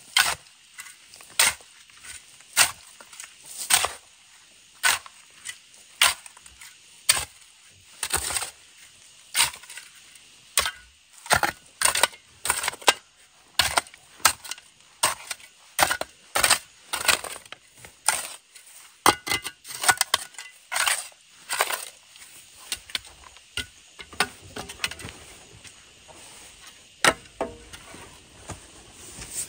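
Metal hoe blade striking and scraping hard, stony soil in a steady rhythm of sharp chops, about one stroke a second.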